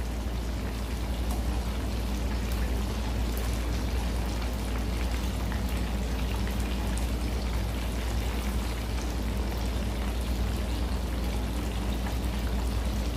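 Chicken pieces deep-frying in a stainless steel pot of hot oil: a steady crackling sizzle, with a steady low hum underneath.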